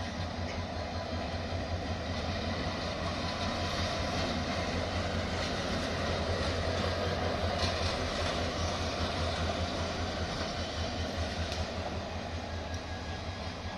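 Train of oil tank wagons rolling slowly past on the track: a steady rumble with a low hum, swelling a little midway and easing near the end.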